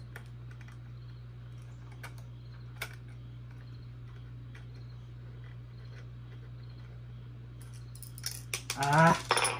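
A small screwdriver and robot-kit standoffs clicking faintly against the chassis as the risers are fitted, over a steady low hum. Near the end comes a short burst of rattling clatter with a brief vocal exclamation, as a riser slips out of line.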